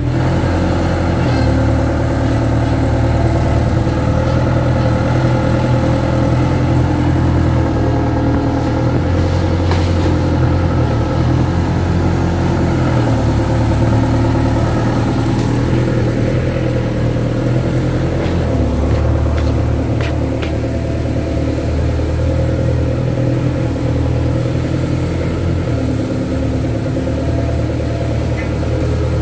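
Kato crawler excavator's diesel engine running steadily, its note rising and dipping every few seconds as the hydraulics work to move the machine.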